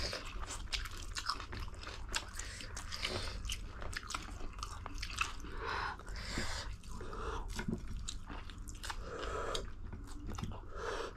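Close-up chewing and biting of a spicy ramen noodle meal, a steady run of many small wet clicks and short crunches.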